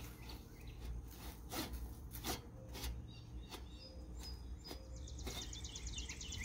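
Outdoor background with birds chirping and scattered light clicks; about five seconds in, a bird breaks into a rapid high trill of about ten notes a second.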